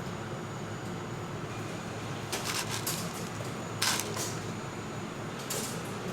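Steady low hum of a working kitchen with a few short clicks and rustles, the sharpest a little before four seconds in.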